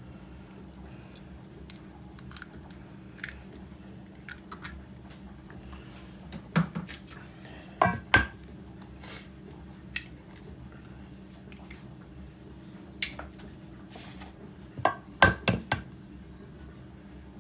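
Eggs being cracked on the rim of a stainless steel mixing bowl: several sharp taps in small groups, the loudest near the middle and again near the end, over a faint steady low hum.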